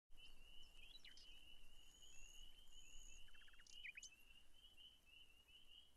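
Faint outdoor nature sound: a continuous, evenly pulsing trill, with a few short bird chirps and two brief held high whistles about two and three seconds in.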